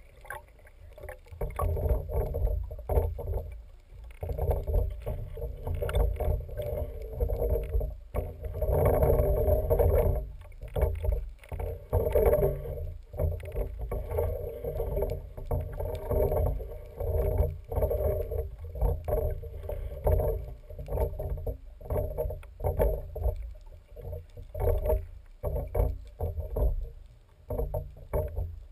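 Muffled water noise heard through an underwater camera housing on a speargun, a low rumble that rises and falls irregularly as the gun moves through the water.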